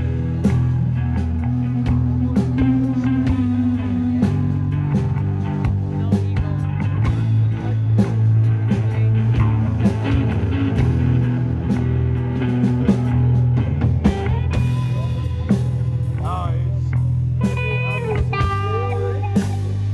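Live rock band playing: electric guitars over a steady drum kit beat and a low, sustained bass line, with bending, wavering lead guitar notes near the end.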